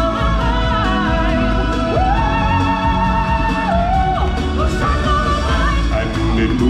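Music from a live musical stage show: singers holding long notes with a wavering pitch over a full band backing with a strong, steady bass.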